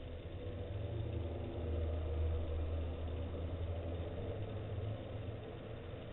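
A low rumble that swells about a second in and eases off again near the end.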